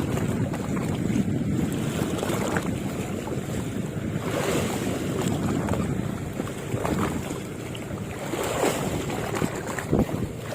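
Wind buffeting the microphone over the steady wash of sea water, with a short knock near the end.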